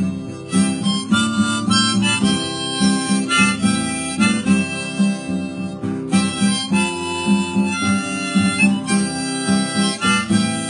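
Harmonica, held in a neck rack, playing a melody over a steadily strummed acoustic guitar, with no singing.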